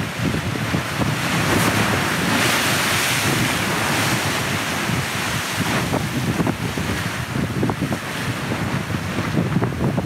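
Rough sea waves breaking and washing against a seawall, with wind buffeting the microphone; a louder rush of surf about two to four seconds in.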